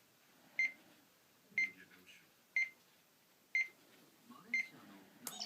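Citizen Moulin alarm clock's electronic alarm sounding five short, high beeps, one each second, followed by a sharp click near the end.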